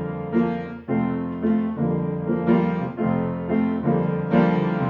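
Piano playing an instrumental interlude between verses of a children's song, with chords struck in a steady beat about twice a second.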